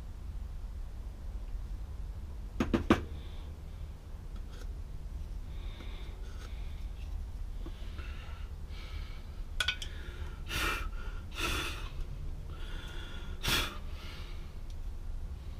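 A series of short, breathy puffs and exhalations from a man carving a plaster of paris mold with a small blade, the strongest near the end, over a steady low hum. A quick pair of sharp clicks about three seconds in.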